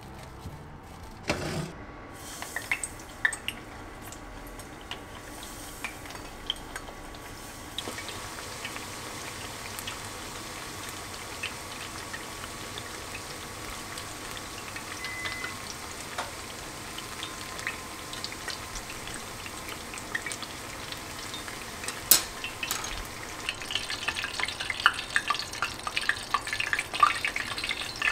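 Eggplant slices deep-frying in hot oil, with a steady sizzle and crackling. The crackling grows louder and busier near the end, as slices are turned and lifted out of the oil.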